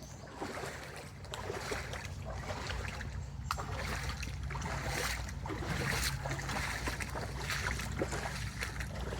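Someone wading through floodwater: water sloshing and splashing with each step, about once a second, over a steady low rumble.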